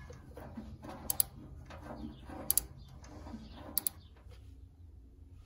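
Wrench working the two mounting nuts off the base of a VW air-cooled engine's carburetor. A few sharp metal clicks come in close pairs about every second and a half, the kind of clicking a ratcheting wrench makes.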